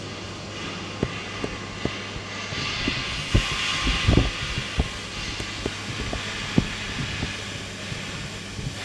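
A steady low mechanical hum with scattered light clicks and knocks, which cluster about three to four seconds in.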